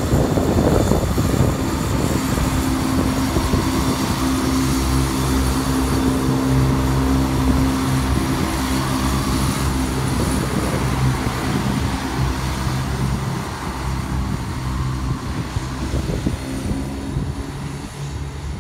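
West Midlands Railway Class 170 Turbostar diesel multiple unit passing and moving off, its underfloor diesel engines making a steady low drone that fades as the train draws away near the end.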